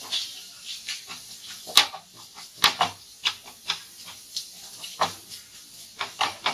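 Wooden spatula scraping and knocking against a frying pan while a thick onion-tomato masala is stirred, in irregular strokes about once a second, some sharper than others.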